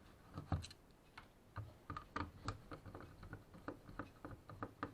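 Irregular light clicks and taps from a printer's removed fuser drive gearbox being handled and worked apart by hand, about fifteen small clicks spread unevenly.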